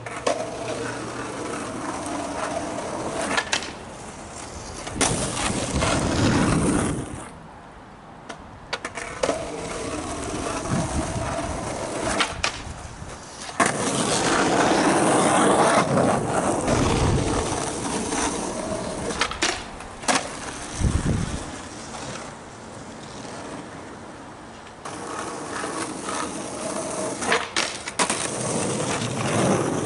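Skateboard wheels rolling over rough asphalt, swelling and fading as the rider passes, with several sharp clacks of the board hitting the ground.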